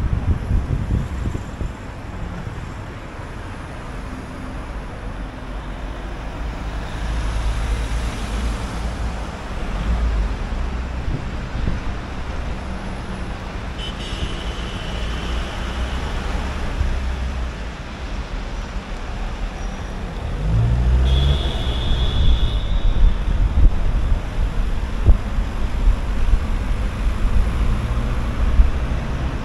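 Car driving through city traffic: a steady low engine and road rumble with tyre noise, growing louder about two-thirds of the way through. Two brief high squeaks cut in, about halfway and again a little later.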